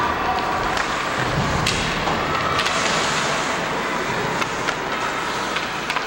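Ice hockey play in an arena: skates scraping the ice and several sharp clacks of sticks and puck over steady crowd noise.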